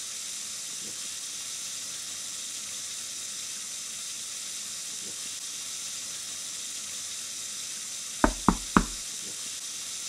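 Kitchen mixer tap running into a stainless steel sink while hands are rinsed under the stream: a steady hiss of water. Three quick knocks about eight seconds in.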